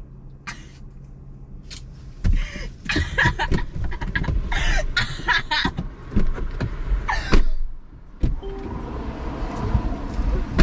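Knocks, bumps and rustling of people moving about inside a car, then a car's electric power window motor whirring steadily for about two seconds near the end.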